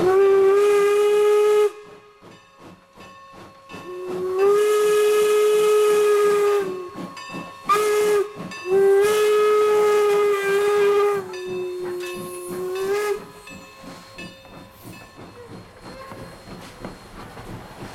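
Steam whistle of Strasburg Rail Road No. 475, a 4-8-0 steam locomotive, sounding four blasts, long, long, short, long, the pattern of a grade-crossing signal. The last blast sags lower and quieter before it stops, and exhaust chuffs are heard between the blasts. Near the end the passenger coaches roll past.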